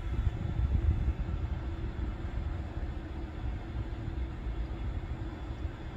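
Railway station ambience: a low, uneven rumble with a faint steady hum, as a train approaches in the distance.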